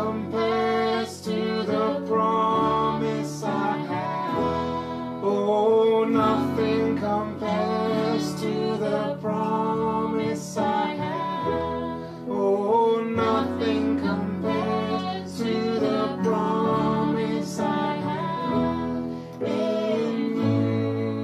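Background music: a slow piece whose notes and chords change every second or two.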